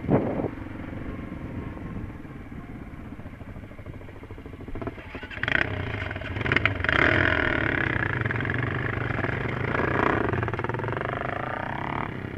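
Trail motorcycle engines running on a rough dirt track, heard from on board one of the bikes, with a knock right at the start. About five seconds in the engine noise grows louder as other bikes run close alongside, and the revs rise and fall, climbing again near the end.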